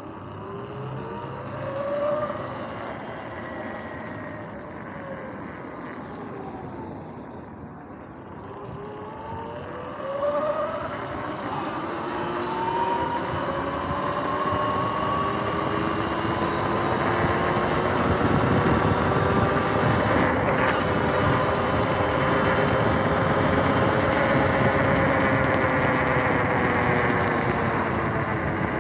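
Sur-Ron X electric dirt bike's motor and freshly replaced chain drive whining as it rides. The pitch rises during a short pull-away at the start and again in a longer acceleration through the middle, then holds high at cruising speed. A rushing noise builds under the whine in the second half.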